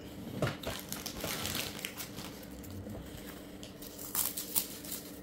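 Rustling, crinkling handling noise with scattered light plastic clicks and knocks, over a faint steady hum.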